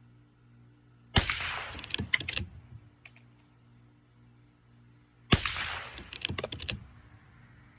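.22 Long Rifle rifle fired twice, about four seconds apart; each sharp shot is followed by a quick run of clicks.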